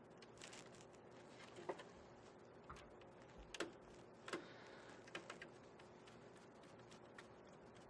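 Near silence with faint scattered clicks and ticks, about one a second, as a control wire is fitted into the terminal block of a WEG CFW11 variable frequency drive.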